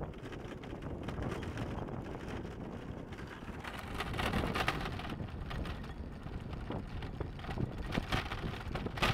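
Wind buffeting the microphone, a steady low rumble with scattered crackles about four seconds in and again near the end.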